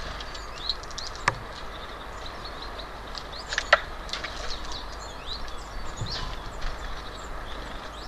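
Small birds chirping and twittering at a feeder, with a steady low rumble underneath. Two sharp clicks stand out, about a second in and again a few seconds later.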